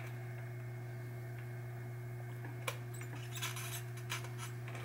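A few light clicks and small rattles of metal parts being handled as a wire is worked loose from a pinball pop bumper's solder lug, about halfway through and again near the end, over a steady low hum.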